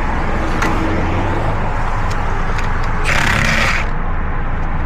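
Road traffic rumbling past steadily, with a short hiss about three seconds in.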